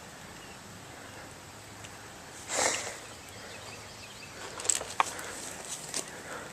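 Faint outdoor background hiss with a short rustle about two and a half seconds in and a few sharp clicks near the end.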